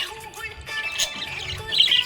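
Budgies chirping and warbling in a fast, continuous chatter of high squeaky notes, with music playing underneath.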